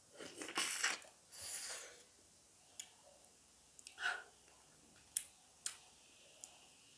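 Close-up mouth sounds of a person eating rice and curry by hand. Two bursts of wet slurping and chewing come in the first two seconds, followed by a few short lip smacks and clicks as the fingers are licked.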